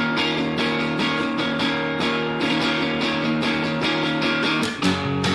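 Background music led by guitar, with a steady beat; the low notes come in stronger near the end.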